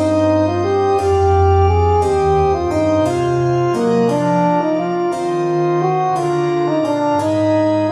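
Instrumental music: the keyboard part of a divertimento for horn and organ or harpsichord, playing a run of notes with crisp attacks over low held bass notes.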